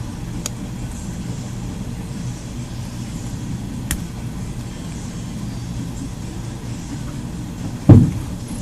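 A steady low hum with a few faint sharp clicks as a small metal shield is pried up off a phone's circuit board. A loud thump near the end.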